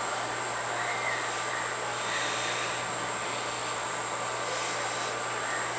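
Steady background hum and hiss with no distinct event.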